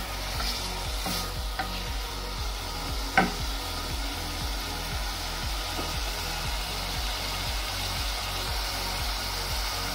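Prawns and sliced onions sizzling steadily as they fry in oil in a saucepan. A wooden spoon stirs through them with a few light clicks in the first couple of seconds, and there is a single sharp knock about three seconds in.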